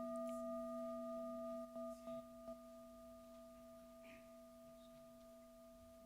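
Tibetan singing bowl ringing on after being struck: a steady low hum with two higher overtones, slowly fading. A few faint clicks about two seconds in.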